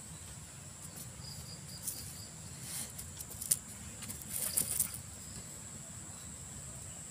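A steady high insect drone over the low rush of a flooded creek, with scattered rustles and clicks from movement on the bank and a brief run of faint high chirps about a second in.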